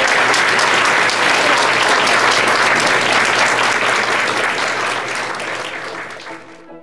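Crowd applauding, a dense patter of many hands clapping that fades away near the end.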